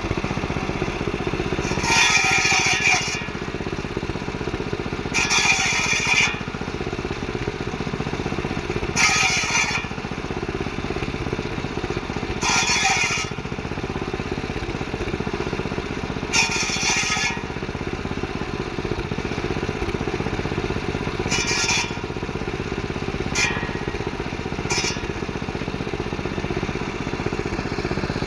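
Circular saw running steadily, its blade cutting through cassava stems again and again: a brief higher-pitched rasp of about a second every three to four seconds over the saw's constant drone.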